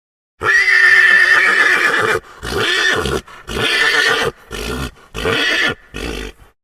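Horse neighing: one long call lasting almost two seconds, then five shorter bursts of sound with brief pauses between them.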